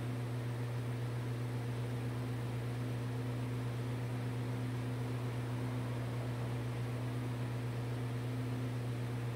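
Steady low electric motor hum with an even hiss, like a fan running, unchanging throughout.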